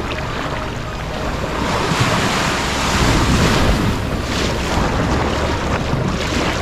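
Ocean waves breaking and washing up the sand, with wind rumbling on the microphone. The surf swells louder about two seconds in and again briefly toward the end.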